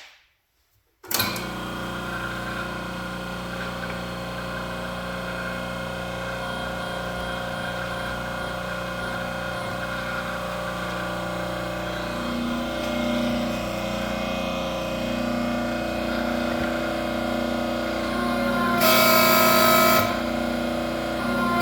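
Home-built hydraulic press, a log-splitter valve and a 4-inch plow-lift cylinder, with its pump starting about a second in and running steadily as the ram presses on a force gauge. The pitch rises as the load builds. Near the end come two louder whining spells as the press reaches its limit of about 7 tons, held back by the log-splitter valve's 1200 psi check valve.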